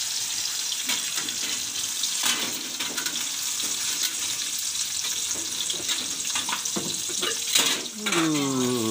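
Chillies, shallots and garlic frying in oil in a wok, sizzling steadily, with a metal spatula knocking and scraping against the wok as they are stirred.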